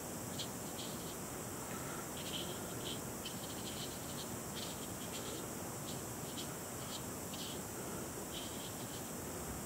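Small watercolour brush working on drawing paper: faint, irregular, scratchy strokes and dabs over a steady background hiss.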